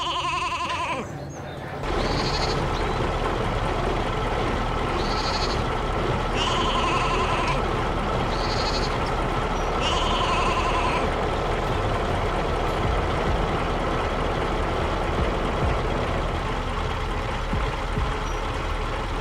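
Animal bleats, about six short calls over the first eleven seconds, over a steady engine rumble that starts about two seconds in and runs on unchanged.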